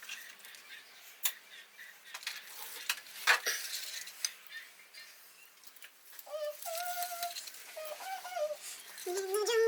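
Light clicks and rustles of an LED strip being handled and stuck in place, with sharper clicks about a second and about three seconds in. From about six seconds in, a voice sings a few held, sliding notes, louder near the end.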